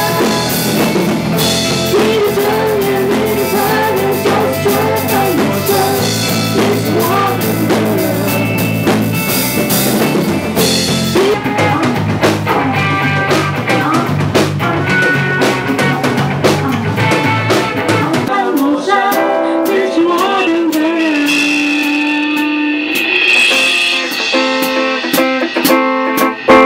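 Rock band music with electric guitar and drum kit and a wavering melody line on top. About 18 s in the bass drops out, leaving guitar playing held notes.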